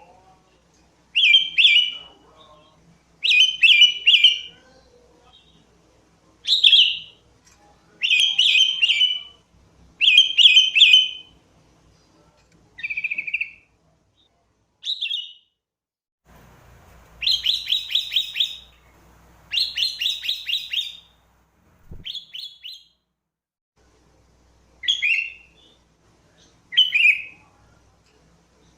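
Sooty-headed bulbul singing: short chirping phrases repeated every second or two, with a quicker run of notes about two-thirds of the way through.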